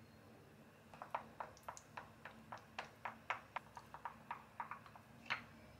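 Wooden spoon knocking and clinking against a small glass bowl while stirring a thick sauce. There are about four or five light taps a second, starting about a second in and ending with one louder knock.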